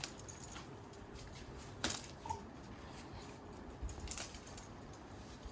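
A hushed room with a few faint, sharp metallic clicks and clinks, two of them standing out about two seconds and four seconds in, and a very brief faint chirp in between.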